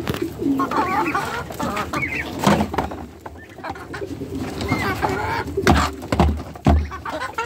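Domestic hens clucking and crooning in short calls as they crowd around feed, with a few dull thumps close by late in the clip.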